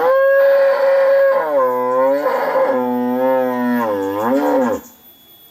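A cow mooing: one long, loud call of about five seconds whose pitch wavers up and down, ending abruptly.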